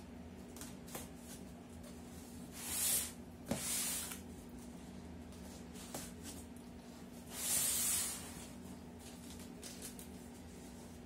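A cardboard box being slid across a tabletop, making three short scraping hisses of under a second each, with a few light taps and clicks between them.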